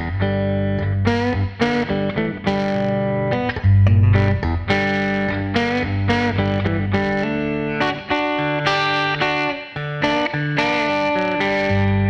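Michael Kelly Hybrid Special, a guitar that blends electric and acoustic pickups, played with a pick: chords and single notes struck one after another and left to ring.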